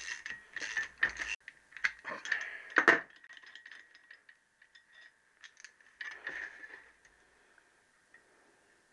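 Metal-on-metal clicking and clinking of a socket ratchet wrench and steel engine parts as the bolt is worked on a Triumph T120R crankshaft flywheel. The clicks are dense in the first three seconds and end in one louder knock, followed by a few faint ticks and a brief rustle of handling about six seconds in.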